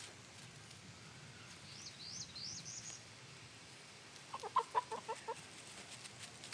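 Chicken clucking: a quick run of about eight clucks a little after the middle, with a short series of high rising chirps earlier on.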